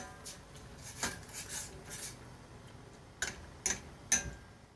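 Wooden spatula knocking and scraping against a stainless steel saucepan while stirring prawn heads simmering in wine and fish stock. It gives a handful of light, irregular knocks.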